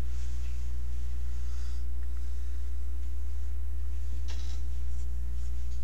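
Steady low electrical hum with a few fainter steady tones above it, and a brief soft rustle about four seconds in.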